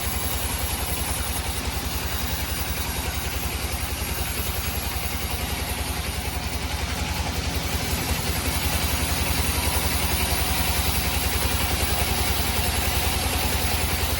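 An engine running steadily at a constant speed, with a rapid, even low pulsing; it gets a little louder about eight seconds in.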